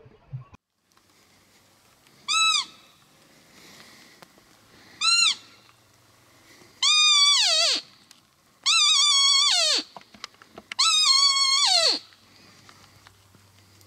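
Roe deer lure call blown in five high, whistling fieps to draw a buck: two short ones, then three longer ones of about a second each, each dropping in pitch at the end.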